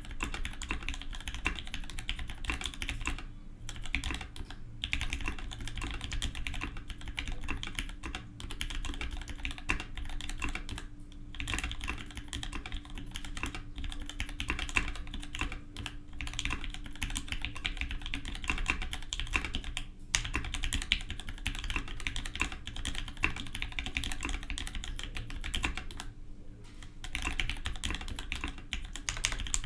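Continuous fast typing on a Matrix 2.0 custom mechanical keyboard with lubed Gateron Giant switches and PBT keycaps, a rapid stream of key clacks broken by a few short pauses.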